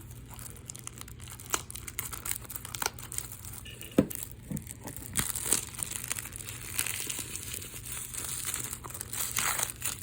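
Plastic wrapping being torn and crinkled off a Blu-ray case, a run of crackles and small clicks with a sharper click about four seconds in.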